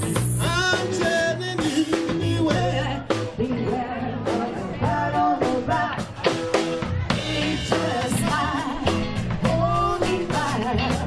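Live band playing a rock song, with drum kit, guitar and a singing voice.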